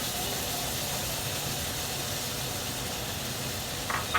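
Steady sizzling hiss of chicken keema and capsicum cooking in a pan, with a brief scrape or knock near the end.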